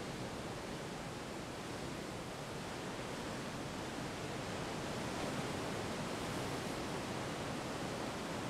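Ocean surf on a rocky shore: a steady wash of breaking waves that swells a little about halfway through.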